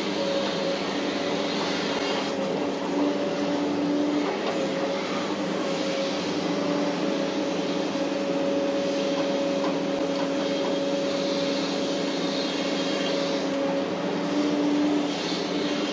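Hitachi 850LC excavator's diesel engine and hydraulics running steadily, heard from inside the cab while the bucket works, with the engine note rising briefly twice, a few seconds in and near the end.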